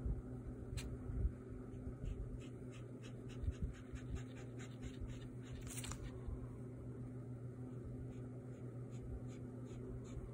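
Marker tip drawing quick, short hatching strokes on paper, a rhythmic scratch about three times a second, with one longer, louder stroke about halfway. A low steady hum lies underneath.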